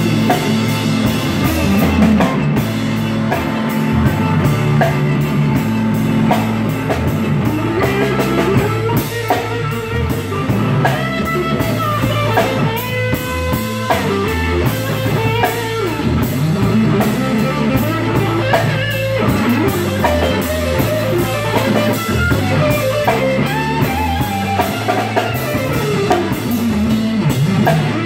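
Live rock band playing: a Stratocaster-style electric guitar takes an instrumental lead with long notes bent up and down, over electric bass and a drum kit.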